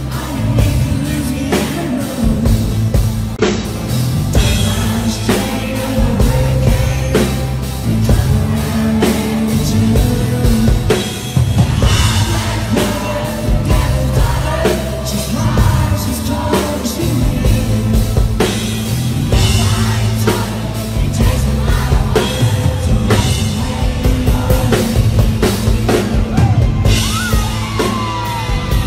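A live rock band plays, with a male lead vocal over electric guitars, bass and a drum kit keeping a steady beat.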